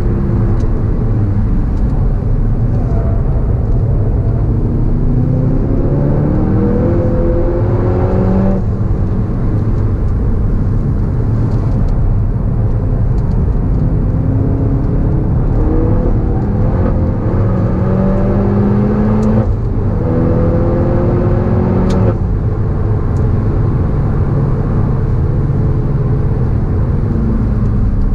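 Volkswagen Golf GTI Clubsport S's turbocharged 2.0-litre four-cylinder pulling hard on track. Its pitch climbs and then drops at three upshifts, the first about a third of the way in and two more close together about two-thirds in, all over a heavy low rumble.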